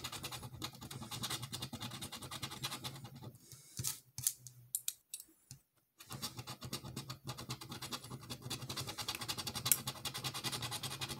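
A metal edge scraping the latex coating off a lottery scratch-off ticket in quick, rapid strokes, with a pause of about two seconds near the middle.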